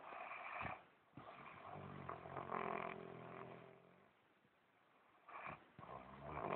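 A man snoring in his sleep. A short breath comes first, then about a second in a long, pitched snore of nearly three seconds, a pause, and the next snore building near the end.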